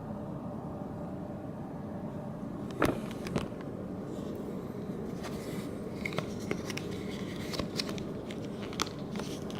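Steady low room hum; from about three seconds in, scattered irregular clicks and light rustling as small objects are handled.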